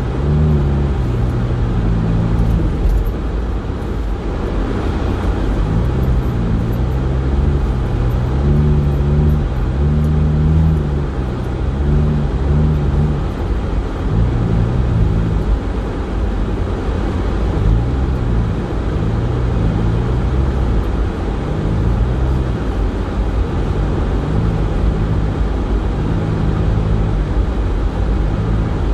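A car heard from inside the cabin, driving on a snow-covered road: a steady low rumble from the tyres and road, with the engine's hum rising and falling in pitch every second or two as the speed changes.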